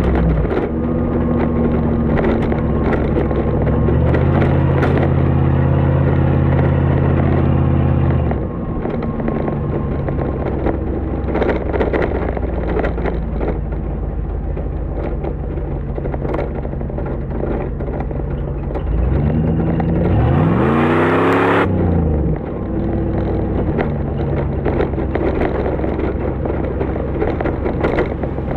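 1997 Jeep Grand Cherokee's 5.2-litre V8 running through a Magnaflow muffler while driving. It holds a steady engine note, then about nineteen seconds in it revs up with a rising pitch and drops off suddenly before settling back to a steady run.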